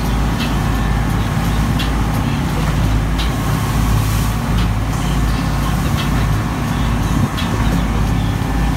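A fishing boat's engines running steadily at speed, a constant low drone under the rush of wind and churning water, with a few brief sharp hits scattered through.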